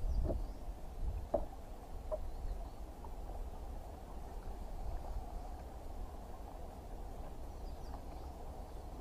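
Wind rumbling on the microphone over water lapping against a boat hull, with a few light knocks in the first couple of seconds.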